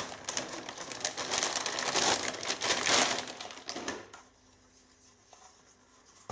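Rustling and rapid clicking of a graphics card being handled out of its packaging. The noise stops about four seconds in.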